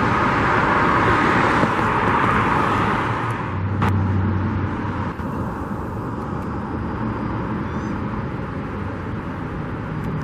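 Road traffic: the tyre and engine noise of a passing vehicle, loudest in the first few seconds, easing into a steady traffic hum.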